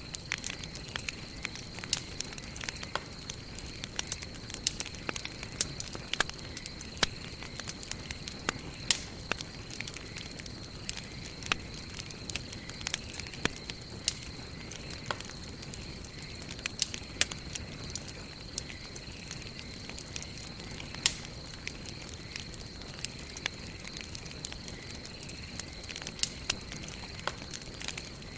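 Wood fire burning, with irregular sharp crackles and pops over a soft steady hiss. A steady high thin tone runs underneath.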